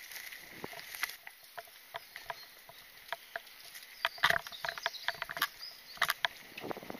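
Mountain bike ridden along a dirt singletrack: irregular clicks and rattles from the bike over the bumps, busier about four seconds in and again about six seconds in.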